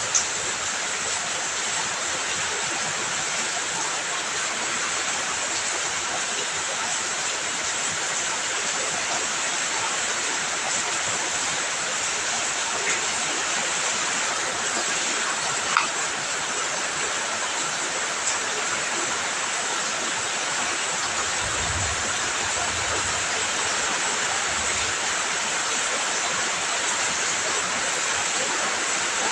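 Heavy rain pouring steadily, a dense even hiss with a few sharp drip or tap sounds standing out, the loudest about 16 seconds in. A faint low rumble comes in briefly past the two-thirds mark.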